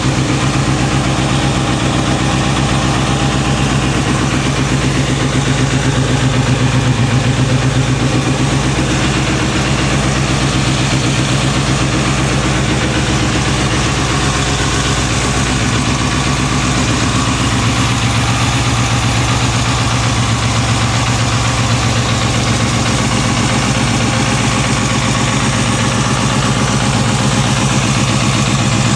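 Kawasaki Balius 250 cc inline-four engine idling steadily through an OVER aftermarket silencer.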